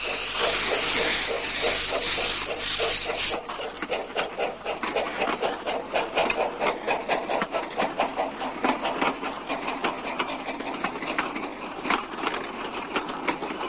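Small narrow-gauge steam locomotive of a rubble railway: a loud hiss of steam for the first three seconds or so, then steady chuffing with metallic clanks, about four beats a second.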